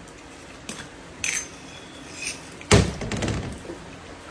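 Dishes clinking and knocking during a meal: a few light clinks, then one louder thump about two-thirds of the way in.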